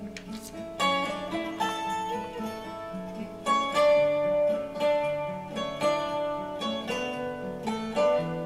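Background music of plucked acoustic guitar, picking a melody of separate notes, with a new note every half second or so.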